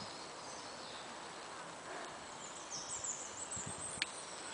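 A bird singing, with short high chirping phrases that step up and down in pitch, over a faint steady outdoor hiss. A single sharp click near the end.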